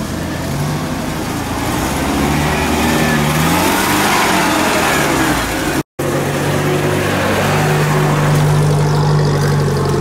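UAZ-469 off-road vehicle's engine working under load as it forces its way through dense brush, the revs rising and falling about four seconds in, then holding a steady, stronger drone. A brief dropout cuts the sound about halfway through.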